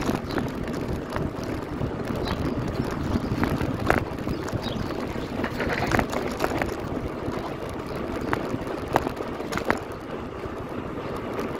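Bicycle rolling over a street of paving blocks: steady tyre rumble mixed with wind noise on the microphone, with scattered sharp clicks and rattles.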